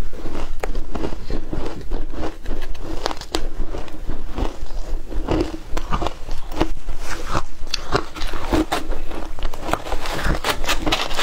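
Ice being bitten and chewed, close to the microphones: dense, irregular crunching and crackling of frosty shaved ice.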